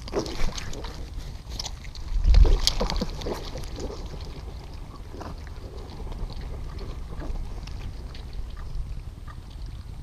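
Wind rumbling on the microphone of a camera set among black vultures, the strongest gust about two and a half seconds in. Shells click and clatter as the vultures walk and peck around it, with a few short low grunts.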